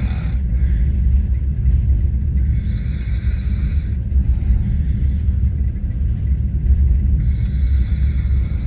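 Men snoring in a sleeper-train compartment, one snore about every four to five seconds, over the steady low rumble of the moving train.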